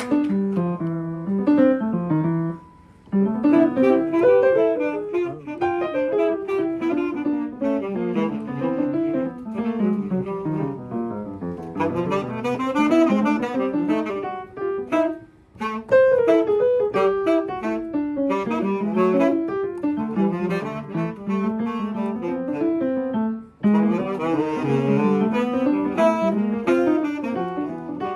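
Saxophone playing a fast, winding bebop line over piano accompaniment, in phrases with short breaks between them.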